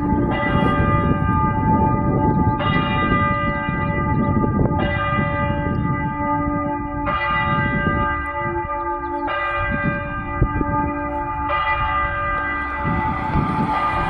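A church bell tolling, struck six times at a steady pace of about one stroke every two seconds. Each stroke rings on into the next, over a steady low rumble.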